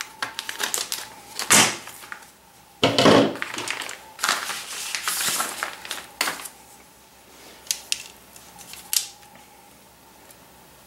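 Plastic packaging crinkling and rustling in irregular bursts as a sectioned whip antenna is taken from its bag and handled, with a few sharp clicks among the rustling.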